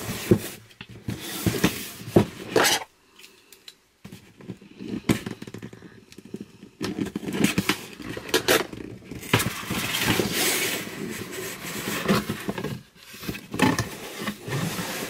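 Cardboard subscription box being handled and opened by hand: sharp knocks and scrapes of the box, a brief lull, then a longer stretch of paper rustling as patterned wrapping paper is lifted out.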